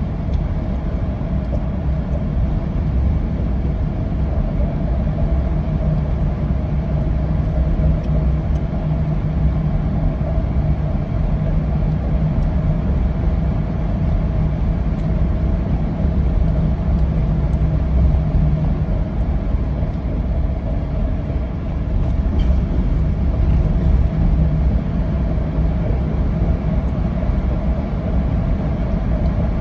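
Car driving through a road tunnel, heard from inside the cabin: steady road and engine rumble with a constant low drone.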